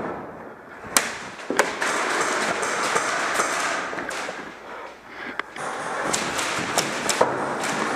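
Scattered sharp pops of airsoft gunfire during an indoor firefight: one about a second in, another shortly after, and a quick cluster of several near the end, over a steady rustle of gear from the moving player.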